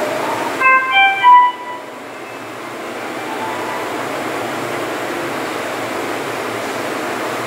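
A hospital monitor or ventilator alarm sounds a quick pattern of short electronic beeps at several pitches about a second in. After it a steady rushing hiss of ward equipment continues.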